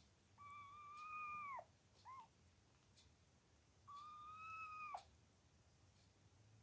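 A kitten mewing: two long, high mews of about a second each, each dropping in pitch at the end, with a short chirp between them.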